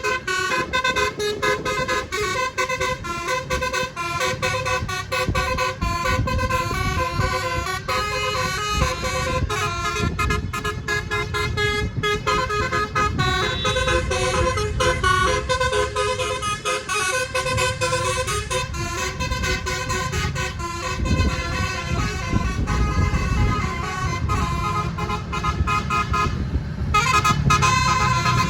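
A bus's nine-note telolet horn of the basuri type playing a fast run of short horn notes in melodic phrases, with a brief break near the end, over the low running of the bus's engine.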